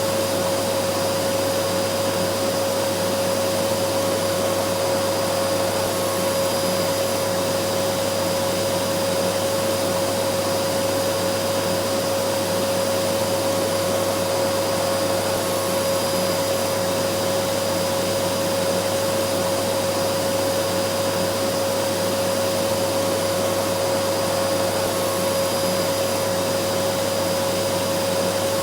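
Vacuum cleaner running steadily: an even whooshing hiss with a strong steady hum.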